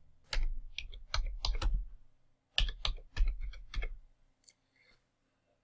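Computer keyboard typing: two quick runs of keystrokes with a short pause between them, stopping about four seconds in.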